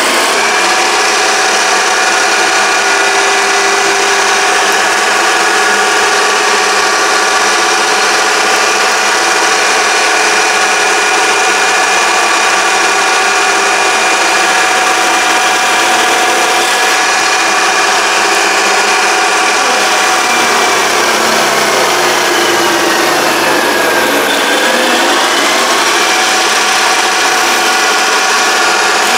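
Mini lathe's electric motor running steadily with a whine. Its pitch sags for a couple of seconds about three quarters of the way through, then recovers.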